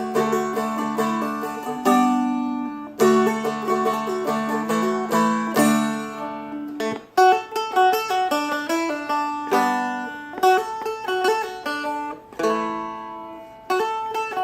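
Seagull Merlin four-string dulcimer being flatpicked: a Celtic jig melody played over ringing drone strings, with full strums every few seconds.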